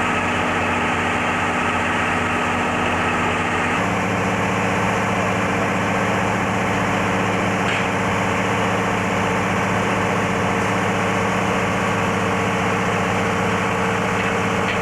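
Diesel railcar engine idling steadily, its hum shifting slightly in pitch about four seconds in.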